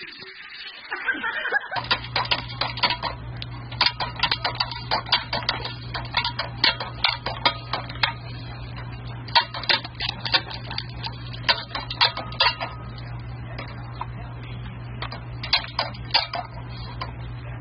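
Irregular plastic clicking and clattering of a paw-operated dog water fountain as dogs step on its pedal and water spurts, starting about two seconds in, over a steady low hum.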